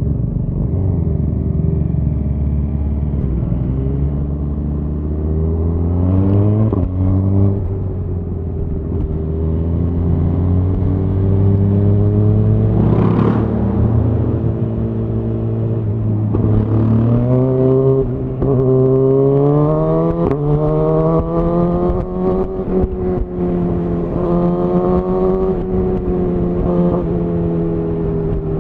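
Suzuki GSX-R1000R inline-four with a Yoshimura R-11 SQ exhaust, under way. Its pitch climbs and drops sharply with gear changes several times in the first few seconds, holds fairly steady, then climbs again to another shift about twenty seconds in.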